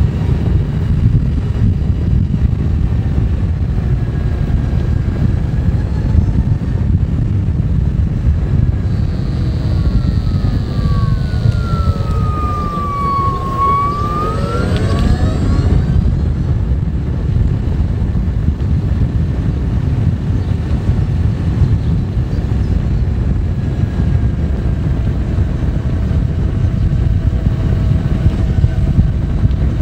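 Steady low rumble of wind and road noise while riding a Zero FX electric motorcycle. About halfway through, the electric motor's whine glides down in pitch as the bike slows, then rises again as it speeds up.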